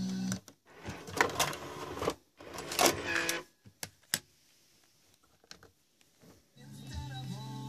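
The mechanism of a JVC KS-FX630R car cassette receiver and its 12-disc CD changer whirs and clicks in two bursts as the source is switched from tape to CD, after the cassette music stops. Two sharp clicks follow, then a quiet gap, and FM radio music comes in near the end.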